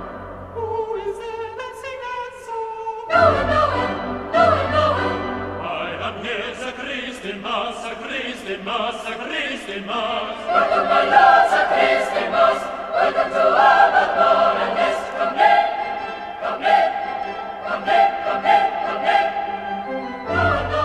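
A cathedral choir of boy trebles and men singing a carol in parts.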